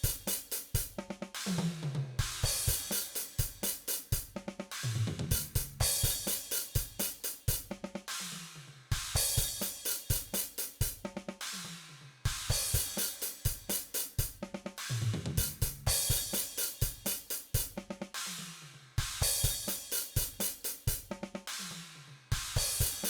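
DrumGizmo virtual drum kit playing a steady rock beat: hi-hat and cymbals, snare and kick, with tom fills that step down in pitch every few seconds.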